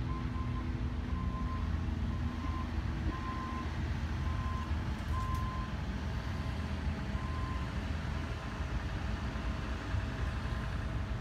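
A vehicle's backup alarm beeping at a steady pace, roughly once a second, with a short gap in the middle, over a low, steady rumble.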